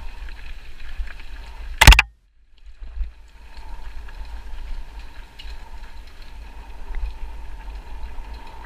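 Mountain bike rolling fast down a dirt trail: a steady low rumble of wind on the microphone and the trail under the wheels. About two seconds in comes one sharp loud knock, then the sound cuts out for about half a second before the rumble returns.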